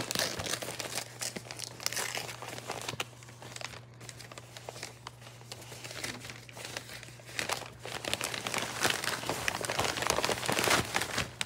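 Crumpled newspaper and shredded paper packing rustling and crinkling as it is handled, busiest right at the start and again in the last few seconds.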